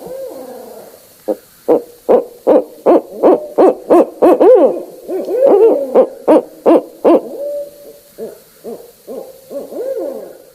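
Barred owls calling in a fast, excited run of hoots, about two to three a second, with wavering cries that rise and fall in pitch. The run is loudest in the middle and trails off into softer hoots near the end.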